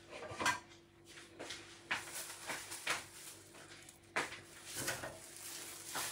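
Scattered light clicks and knocks, like kitchen items being handled, every second or so over a faint steady hum.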